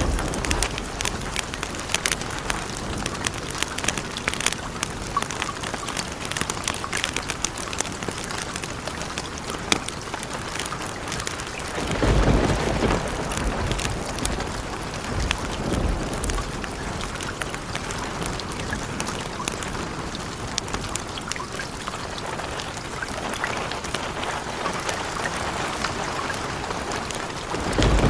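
Steady rain with many sharp drop ticks, and a low thunder rumble that swells about twelve seconds in and rolls away over several seconds.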